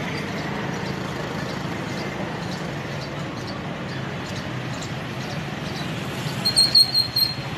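Steady drone of a helicopter flying overhead. Near the end comes a loud, high-pitched whistling note, pulsed several times over about a second.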